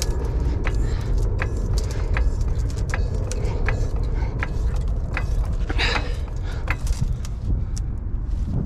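Hydraulic floor jack being pumped to lift a car, its handle strokes giving sharp metallic clicks about twice a second, with a brief scrape about six seconds in, over a steady low rumble.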